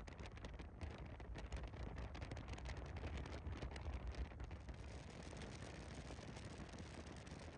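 Wind buffeting the microphone: an uneven low rumble with crackles through the first half, then a steadier rush.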